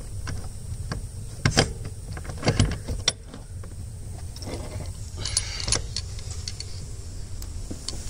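Handling noise as a loosened brake pressure switch is taken off an air manifold under a truck's dash: several sharp knocks and clicks of the metal sensor and hands against plastic panels and wiring, the loudest about one and a half and two and a half seconds in, and another cluster of clicks and rattling about five seconds in, over a steady low hum.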